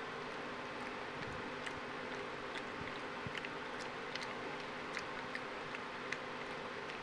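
A java macaque chewing food with small wet lip-smacking clicks, a few a second and irregular, over a steady background hum.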